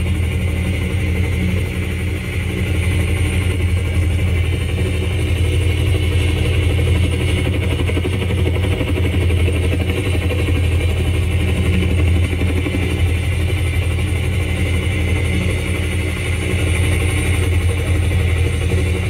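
Small motor of a homemade toy helicopter running steadily, spinning its plastic rotor, with a steady low hum.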